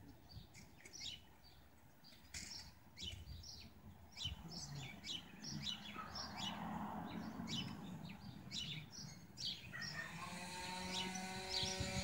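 Small birds chirping: many short, high chirps in quick succession. Near the end a steady droning tone with several overtones comes in.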